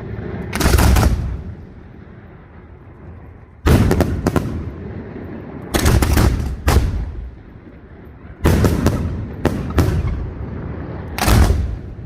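Aerial fireworks bursting in loud bangs, two or three close together in each cluster, with clusters every couple of seconds. Each cluster dies away in a rolling rumble.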